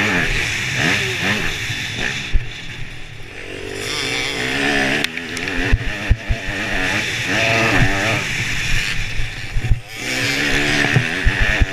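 Dirt bike engine revving up and easing off again and again as the bike rides around a motocross track, with wind rushing over the microphone. Sharp knocks come several times, mostly in the middle and near the end.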